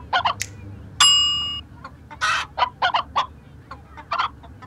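A chicken clucking in a run of short, separate clucks. About a second in, a single loud, bright ding rings briefly over it.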